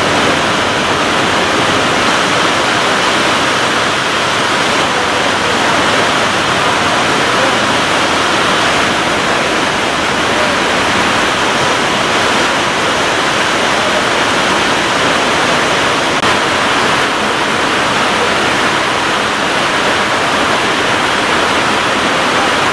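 Heavy rain pouring steadily, a dense, even hiss of downpour falling through tree leaves and splashing on puddled pavement.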